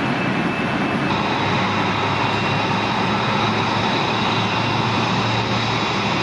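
Jet engine noise running steadily, a constant rushing sound with a high whine over it; about a second in, the whine and a low hum become more pronounced.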